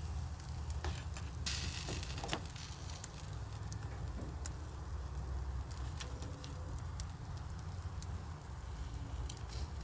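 Food sizzling and crackling on a hot barbecue grill, with scattered sharp clicks and a burst of louder hissing about a second and a half in, over a steady low rumble.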